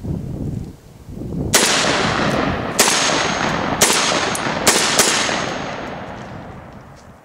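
Lion X4 shotgun firing five shots in a string, the last two close together, each followed by a long echo that fades away. The mixed, decades-old shotshells all fire and the gun keeps cycling without a jam.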